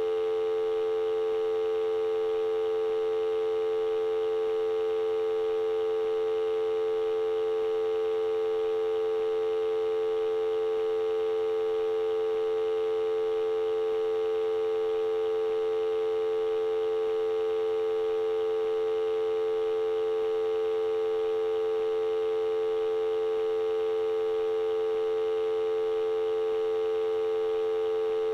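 Telephone dial tone: a steady, unbroken tone that holds at one pitch and level.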